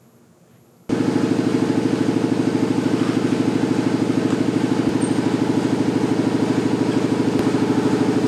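A motor-driven machine switches on abruptly about a second in and runs loud and steady, with a rapid regular pulse.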